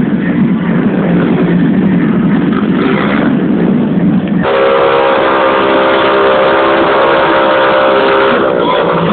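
Loud blaring noise, then about halfway a steady horn-like chord of several held tones that lasts about four seconds and slides down in pitch as it ends.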